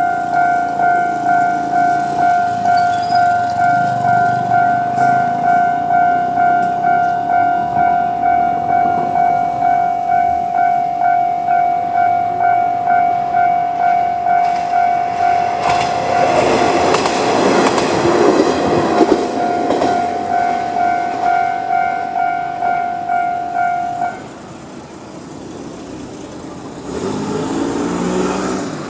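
Japanese level-crossing warning bell, the normal electronic type, sounding a steady repeating ding just under twice a second. A little past halfway a KiHa 2200-series diesel railcar passes through the crossing, and the bell stops about four fifths of the way in.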